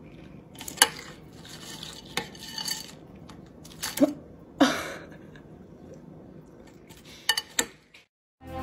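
A fork clinking and scraping against a bowl during eating: scattered sharp clinks with a quick run of three near the end, over low room noise.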